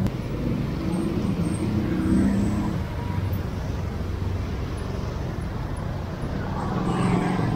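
Street traffic: motorcycle and car engines running and passing close by over a steady low road rumble, with an engine hum that is strongest in the first few seconds and again near the end.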